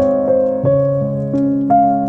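Solo piano playing a slow, melancholy classical piece, a new note or chord struck every half second or so. Faint fireplace crackling sounds underneath.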